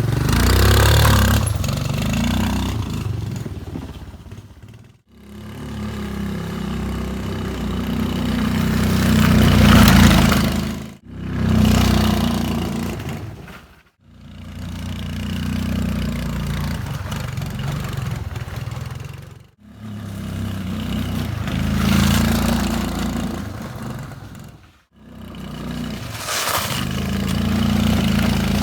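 Suzuki Access 125 scooter's single-cylinder engine running and revving over rough ground, in several short stretches that each cut off abruptly.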